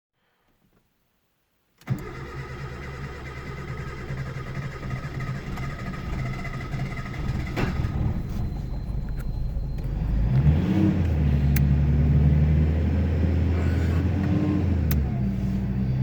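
A vehicle engine running steadily after a sudden start about two seconds in, its pitch stepping up and getting louder about ten seconds in.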